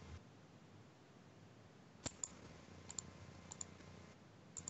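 A few faint computer mouse clicks over near silence, starting about two seconds in, several of them in quick pairs.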